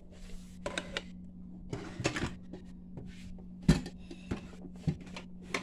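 A series of knocks and light clatters as objects are handled, moved and set down in a kitchen, the loudest knock a little before four seconds in, over a steady low hum.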